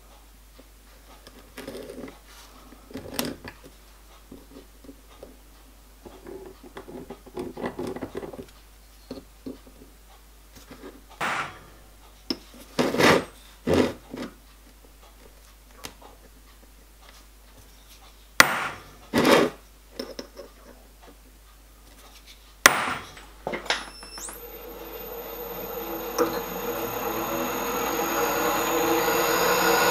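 Light scratching of a divider point scribing marks on a steel ring, then several sharp hammer taps on a centre punch. Near the end a drill press motor starts with a high whine and runs, growing louder as the bit cuts into the steel.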